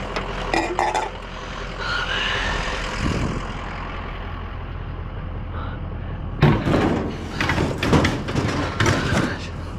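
Truck engine idling with a steady low hum. About six and a half seconds in, a run of clanks and knocks starts as scrap items are handled and loaded onto the truck.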